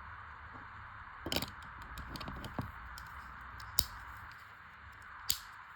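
A few separate sharp clicks and taps from a folding pocket knife being handled and shown, over a steady background hiss.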